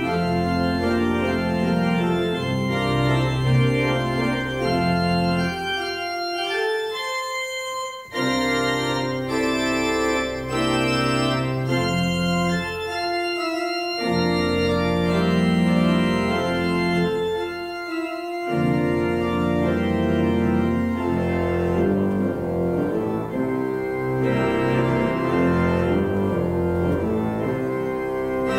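Church pipe organ playing slow, sustained chords as a service voluntary. The low pedal bass drops out briefly three times while the upper chords carry on.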